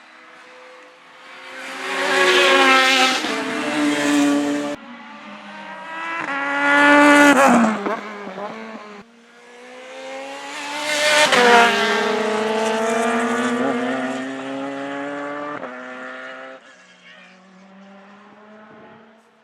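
Racing cars passing at speed, three in turn, each engine note rising as it approaches and dropping in pitch as it goes by; some passes cut off abruptly.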